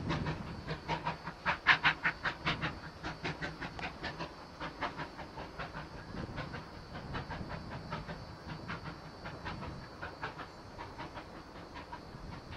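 Ex-Port Talbot Railway 0-6-0 saddle tank steam locomotive working hard on a climb, its chimney exhaust beating in a rapid, even rhythm that fades as the engine pulls away.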